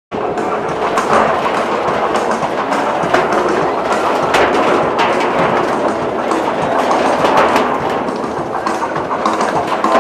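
Empty steel oil drums rolled and shoved along an asphalt street: a continuous rumbling clatter with frequent metallic knocks.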